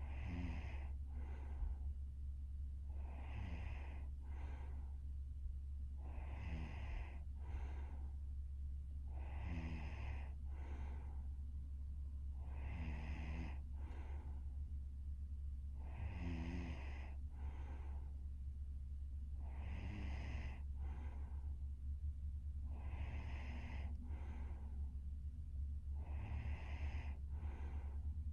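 A young woman breathing noisily and snoring in her sleep, in a slow even rhythm of about one breath every three seconds, each a longer breath followed by a short one. A steady low hum runs underneath.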